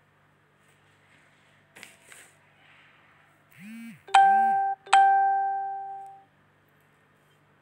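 An electronic ding-dong chime, like a doorbell, about four seconds in: two strikes of the same bright tone, the first cut short and the second left to ring and fade over about a second. Two short low tones come just before it.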